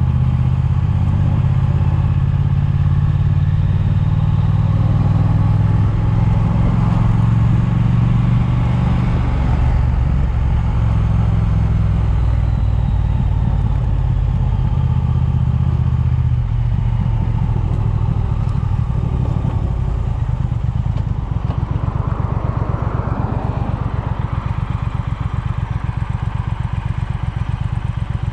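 Triumph motorcycle engine running on the move, with wind noise on the chest-mounted microphone. About two-thirds of the way in the engine note drops to a slow, even beat as the bike slows to a stop.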